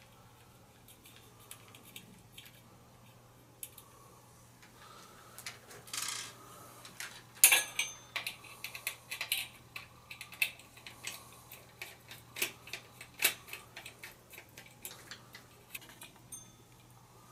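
Ceiling fan light kit being fitted by hand to the fan's switch housing: irregular small metallic clicks, taps and rattles of screws and metal parts. They start about five seconds in, the loudest a sharp click a little before the middle.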